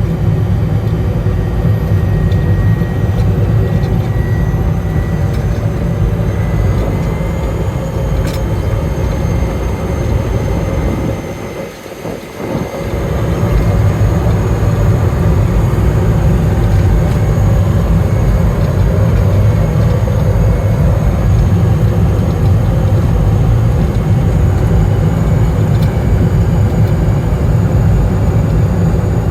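Cessna Caravan's Pratt & Whitney PT6A turboprop running steadily, a loud low propeller drone with a faint high turbine whine above it; the sound drops away briefly about twelve seconds in, then returns as before.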